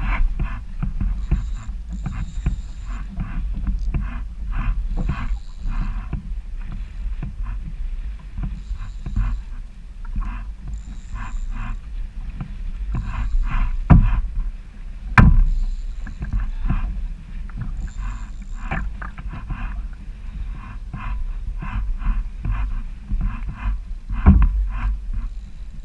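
Kayak moving over choppy water, with wind buffeting the microphone as a low rumble and water slapping the hull in quick, irregular splashes. A few louder knocks stand out: two a little past the middle and one near the end.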